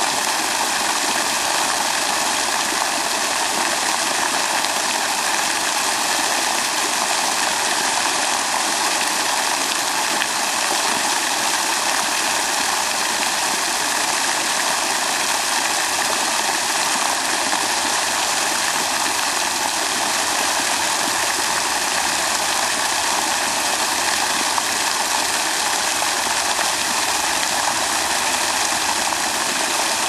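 Steady, unbroken rush of running water.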